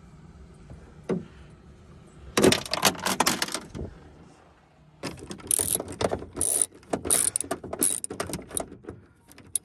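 Hand ratchet on a socket extension clicking in quick runs as it backs out the bolts that hold a rear spoiler to the trunk lid: a single click about a second in, a short burst of ratcheting, then a longer stretch of repeated ratcheting runs.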